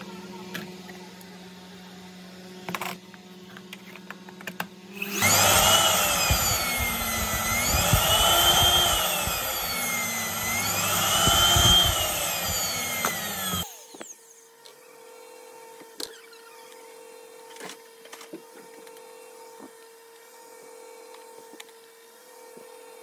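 AEG Electrolux JetMaxx vacuum cleaner motor switching on and running with its speed surging up and down about every three seconds, an oscillation that marks the circuit board resetting. It cuts off after about nine seconds. Light handling clicks come before and after.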